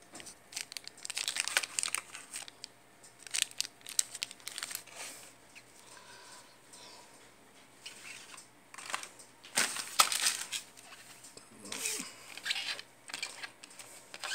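Clear plastic packaging crinkling and rustling as it is handled, in irregular bursts, the loudest about ten seconds in.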